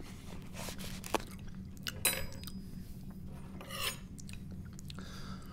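A fork and white styrofoam takeout containers being handled, giving a few scattered scrapes and light clicks as the food is picked at.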